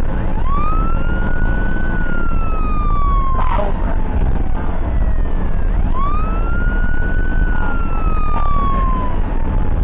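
Ambulance siren wailing in slow cycles: each wail rises quickly and then falls slowly over several seconds, twice through, with a third starting near the end. A steady road and engine rumble runs underneath.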